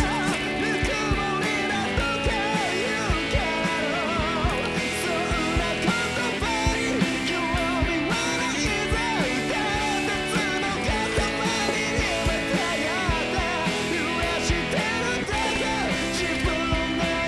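Rock song with a male singer, electric guitars and a steady drum beat.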